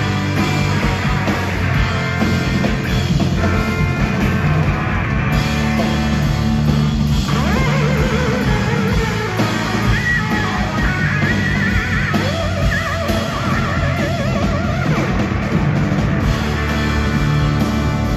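Live rock band playing loudly: electric guitar over two drum kits played at once. In the middle, guitar notes waver and bend.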